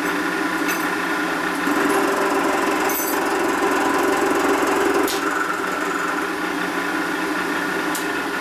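Vertical milling machine running with a boring head cutting the aluminium combustion chamber of a Harley-Davidson panhead cylinder head: a steady machine hum and cutting noise with a few brief clicks.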